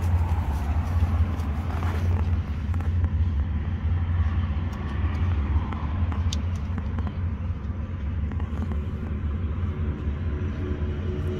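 Steady low outdoor rumble with no clear foreground sound.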